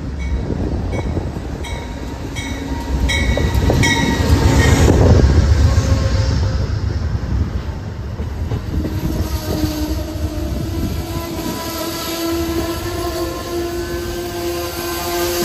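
An Amtrak diesel locomotive and its stainless-steel coaches passing close by. A bell dings repeatedly for the first few seconds, the diesel engine rumble is loudest as the locomotive goes by around five seconds in, then the coaches roll past with a steady wheel squeal on the curve from about nine seconds in.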